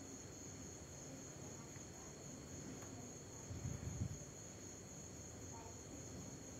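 Crickets trilling steadily in the background, a constant high-pitched drone. A brief low rumble stands out a little past halfway through.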